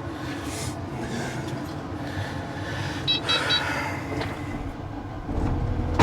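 Excavator engine running steadily, heard from the cab, with three short electronic beeps about three seconds in. Near the end the engine note deepens into a heavier rumble.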